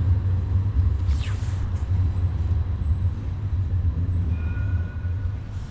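Steady low rumble of city traffic, with a brief falling whistle about a second in and a short two-note tone near the end.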